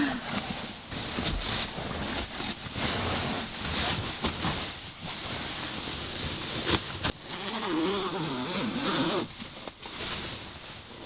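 Rustling and handling of a sewn fabric mattress cover as it is turned over and looked at closely, with irregular scrapes and soft knocks.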